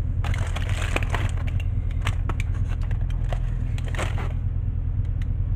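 Aluminium foil crinkling as the foil parcel around a baked sea bass is pulled open, in a burst during the first second or so and again about four seconds in, over the steady low hum of oven noise.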